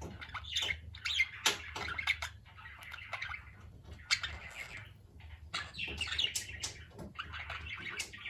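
Pet budgerigars chattering with short, rapid chirps and clicks, joined by light rustles.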